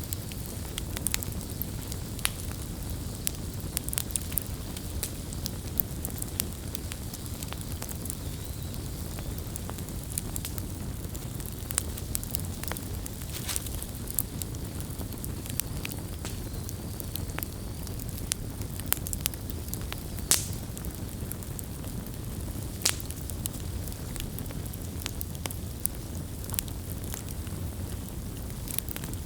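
Campfire burning with a steady low rumble and frequent irregular crackles and pops, one sharper pop about two-thirds of the way through.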